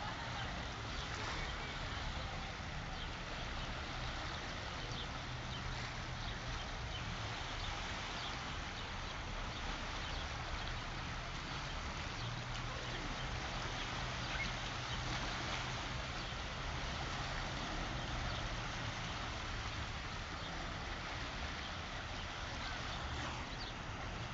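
Sea water washing and lapping in a steady wash of noise full of small crackles, with a low steady hum underneath.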